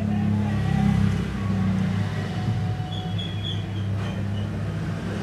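A steady low mechanical hum, like a machine or engine running, holds at an even level throughout.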